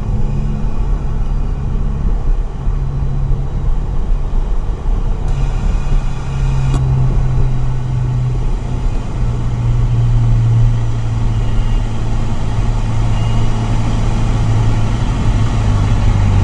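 Volkswagen Mk7 GTI's turbocharged 2.0-litre four-cylinder engine running at a steady cruise, a low drone over road rumble, its pitch shifting slightly about halfway through and then holding. A single short click sounds about seven seconds in.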